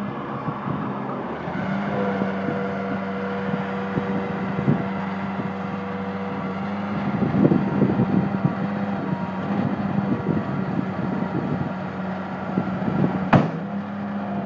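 A Case 420 skid steer's 59-horsepower four-cylinder diesel engine running steadily while the machine is worked, with bursts of clanking and rattling in the middle and one sharp knock near the end.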